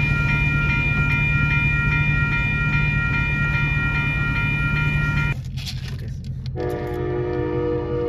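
A train passing with a steady low rumble and a bell ringing about three times a second. Both cut off suddenly about five seconds in, and soft music with held notes starts a second or so later.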